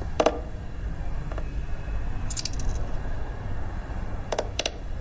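Go stones clicking down onto a wooden Go board: a sharp click just after the start, a few lighter clicks in the middle, and two quick clicks close together near the end, over a low steady background rumble.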